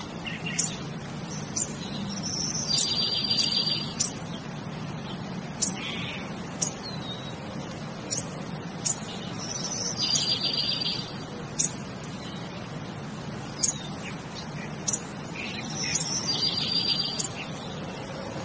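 Birds chirping over a steady low hum: short high calls and clicks, with a buzzy trill now and then. The same sequence of calls comes round again every six or seven seconds, like a looped birdsong ambience track.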